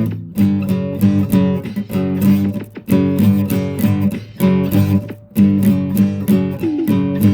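Acoustic guitar music, plucked and strummed chords in a steady rhythm.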